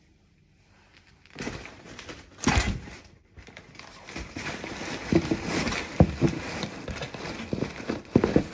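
Cardboard box and its plastic packaging being handled: rustling, scraping and a few knocks, starting about a second and a half in.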